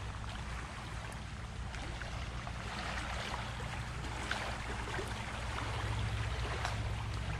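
Small wind-driven lake waves lapping and washing at the shoreline, a steady wash of water over a steady low rumble.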